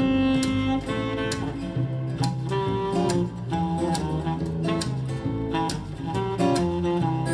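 Instrumental break in a song: guitar picking a run of notes over lower sustained notes, with no singing.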